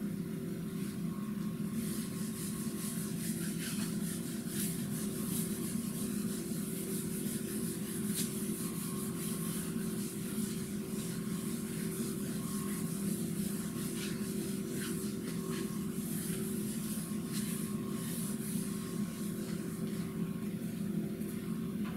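Whiteboard eraser wiping a marker-written whiteboard in irregular strokes, a soft rubbing hiss, over a steady low room hum.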